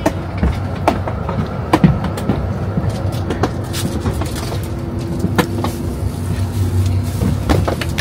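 Tour bus engine running with a steady low rumble, with scattered clicks and knocks over it.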